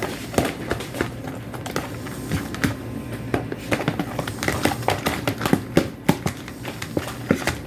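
A spoon stirring freshly activated clear-glue slime in a bowl, with a run of irregular clicks and taps as it scrapes and knocks against the bowl.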